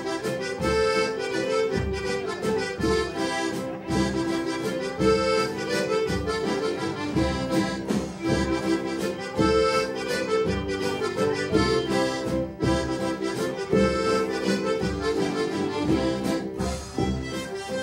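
Live waila band music, with accordions carrying the melody over fiddle, upright bass, guitar and drums keeping a steady beat.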